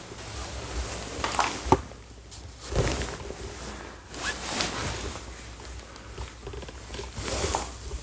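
Irregular rustling and handling noise of a person moving about a room, with a sharp knock nearly two seconds in.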